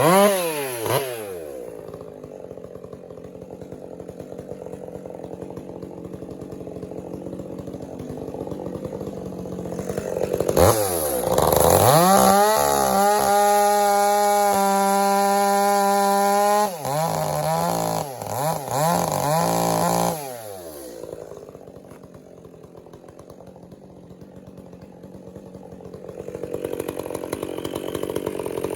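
Stihl MS 400 C chainsaw working firewood: the two-stroke engine drops from full revs to idle, idles for several seconds, then is throttled up and held at a steady high pitch for about five seconds, blipped a few times and let back down to idle, and revved up again near the end.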